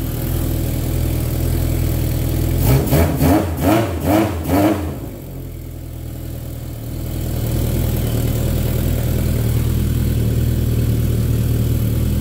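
Yamaha XS1100 air-cooled inline-four engine idling while warming up after a cold start. About three seconds in, the throttle is blipped about five times in quick succession, each rev rising and falling, before it settles back to a steady idle.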